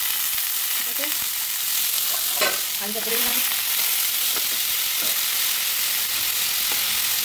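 Sliced potatoes and green capsicum frying in hot oil in a kadai, a steady sizzle. A spatula scrapes and taps against the pan a few times as they are stirred.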